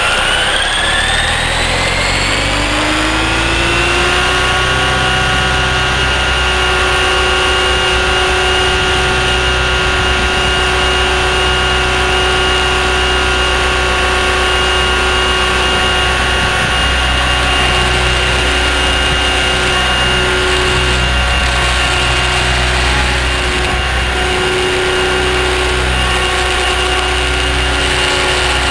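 Align T-Rex 600ESP electric RC helicopter spooling up. Its motor and gear whine rises in pitch over the first few seconds, then holds a steady pitch at flying head speed over a steady low rotor rumble.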